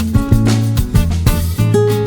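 Background music: an upbeat acoustic guitar track with a steady strummed rhythm over a bass line.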